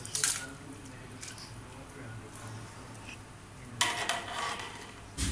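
Metal strainer ladle knocking against an aluminium pot as it scoops par-boiled rice out of boiling water. About four seconds in, the rice is tipped off it into a large pot of biryani masala with a wet clatter.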